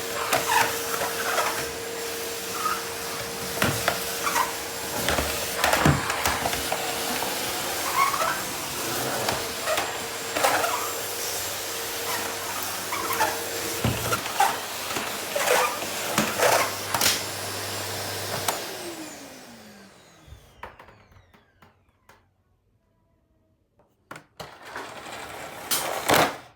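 Rowenta vacuum cleaner running while cleaning a floor, with frequent knocks and clicks as the nozzle moves. It is switched off about 18 seconds in, and the motor's whine falls in pitch as it spins down to quiet. A short clatter follows near the end.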